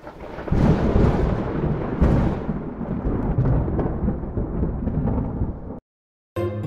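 A deep rumble, like thunder, starting suddenly with a hiss that dies away over the first couple of seconds, then cutting off abruptly near the end.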